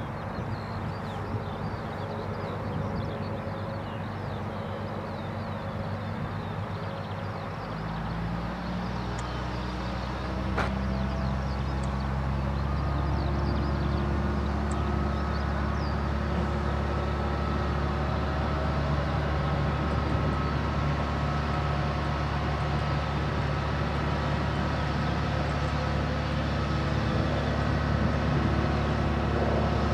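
Liebherr LTM 1500 mobile crane's six-cylinder superstructure diesel running under load, with a steady hydraulic whine, as the boom is luffed up. About eight seconds in the engine revs rise and it runs louder and steadier.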